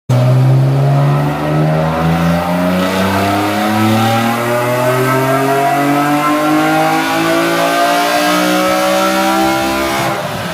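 BMW S54 3.2-litre inline-six in an E36, breathing through headers and a 3-inch exhaust, pulling at full throttle on a chassis dyno: the engine note climbs steadily in pitch for about ten seconds, then the throttle closes near the end and the revs fall away.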